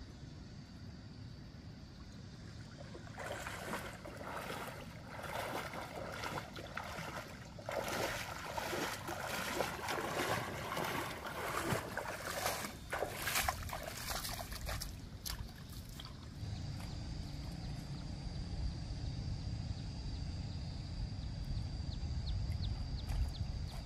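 Water splashing and sloshing in irregular bursts for about thirteen seconds. After that comes a steadier, low rushing sound with a thin high tone running over it.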